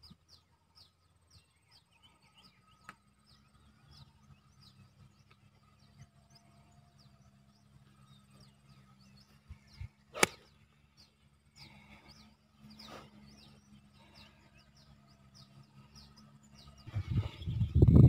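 A golf club strikes the ball on a tee shot: one sharp crack about ten seconds in, after the golfer's backswing. Birds chirp in quick repeated calls behind it, and a loud irregular low rumble comes in near the end.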